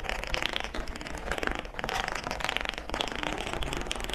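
A long domino run of chocolate bars toppling one after another across a table: a rapid, continuous patter of small clacks.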